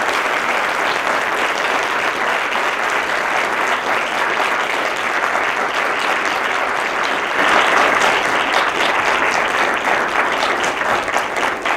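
Audience applause: many hands clapping steadily, growing a little louder about two-thirds of the way through.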